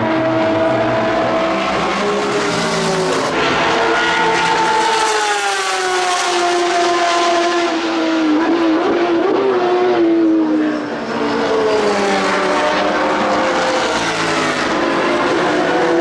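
Porsche 991 RSR GT race cars' naturally aspirated flat-six engines running at racing speed, cars passing one after another. The engine note slides down over several seconds, wavers, then climbs again after a brief dip about two-thirds of the way in.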